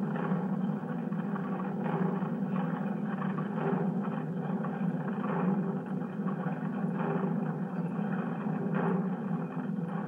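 A steady, dense low rumble with a hiss above it, holding at an even level throughout.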